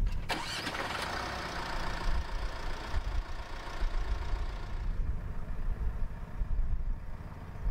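A vehicle engine idling steadily, a low rumble with a hiss over it.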